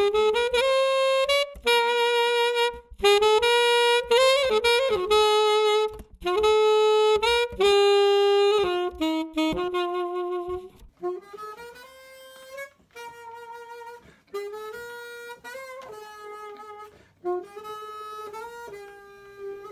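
Alto saxophone played inside an e-Sax practice mute: a melodic phrase of held notes. For the first ten seconds or so it is heard loud and full through the microphone inside the mute, then, about eleven seconds in, much quieter and duller as it sounds in the room, picked up by a phone.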